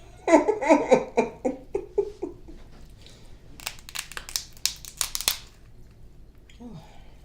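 Laughter in a quick run of short pulses, then about two seconds of sharp crackling and crunching as the seafood boil is handled.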